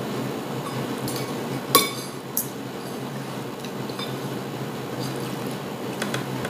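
Metal spoon and fork clinking against a ceramic plate while eating: a few scattered clinks, the loudest and most ringing one about two seconds in, over a steady low background hum.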